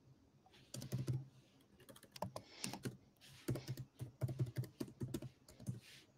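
Typing on a computer keyboard: uneven runs of keystrokes, starting about a second in.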